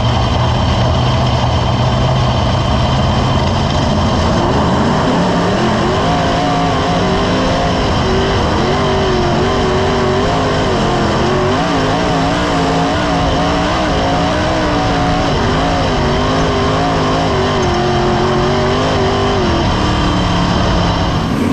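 360 sprint car's V8 engine at racing speed, recorded from a camera in the car's cockpit. The engine runs loud and steady, its pitch wavering up and down every second or so through most of the stretch.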